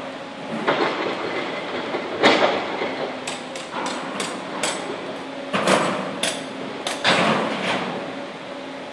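Corrugated steel floor decking clattering and clanking underfoot, with an irregular run of sharp metallic knocks and several longer rattling clatters.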